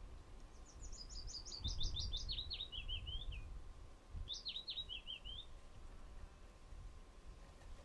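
A small songbird singing two phrases, each a quick run of high notes falling in pitch, the first about three seconds long and the second shorter, over an uneven low rumble.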